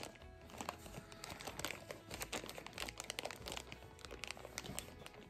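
Faint crinkling and scattered small clicks of hands handling small doll shoes.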